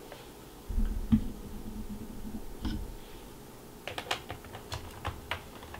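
A small screwdriver and hands working the screw of a plastic laptop memory cover: a few low handling bumps, then a run of light clicks from about four seconds in.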